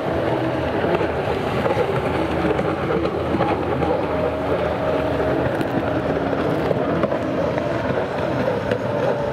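Kawasaki stand-up racing jet ski engines running hard, their pitch rising and falling as the riders throttle through the turns, over a steady wash of spray and water noise.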